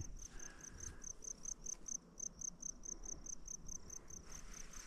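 Insect chirping in meadow grass: a high-pitched chirp repeating steadily about three times a second, fading somewhat near the end.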